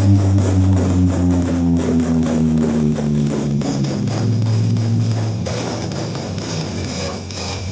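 Loud music played over a carnival sound-horeg sound system, dominated by deep sustained bass notes with plucked-string parts above.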